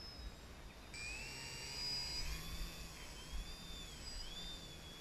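Electric motor and propeller of a Hobbyking Hummer 3D foam profile plane spooling up about a second in to a high whine at a push-off hand launch. Its pitch rises, then dips and rises again with the throttle as the plane climbs.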